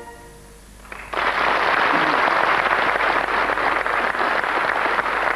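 A concert audience applauding: a sudden, dense clapping that starts about a second in and carries on steadily.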